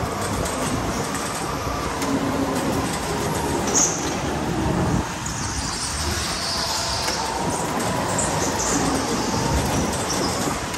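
Electric go-kart driving hard on a smooth indoor track, heard from on board: a steady rumble of movement with a faint motor whine rising and falling, and tyres squealing through the corners in short bursts, the longest about six to seven seconds in.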